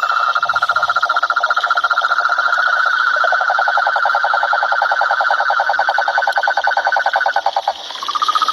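Cane toads (Rhinella marina) calling: long, fast, even trills, two at different pitches overlapping. The lower trill drops out for a moment early on and both break off near the end, with one starting again just after.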